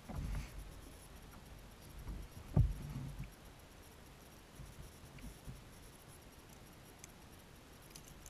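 Handling noises on a plastic kayak while pliers work a crankbait's hooks out of a freshwater drum held in a lip grip: a few dull thumps in the first three seconds, the loudest about two and a half seconds in, then fainter taps and small clicks.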